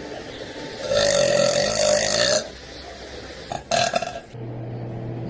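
A woman burping: one long burp lasting about a second and a half, then a short one about two seconds later.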